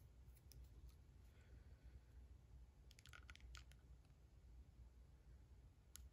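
Near silence with a few faint clicks of plastic being handled, a small cluster of them about three seconds in, as a syringe's blunt needle is fitted into a clear fountain pen barrel for filling.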